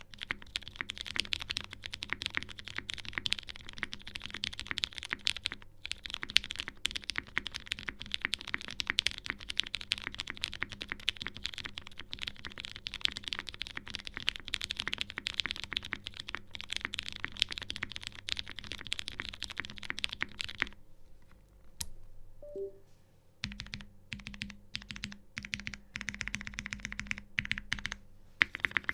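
Lin Whale custom mechanical keyboard with heavily lubed Cherry MX vintage brown switches, a polycarbonate half plate and GMK keycaps, typed on fast and continuously. The typing stops for about three seconds two-thirds of the way through, leaving only a few scattered keystrokes, then picks up again.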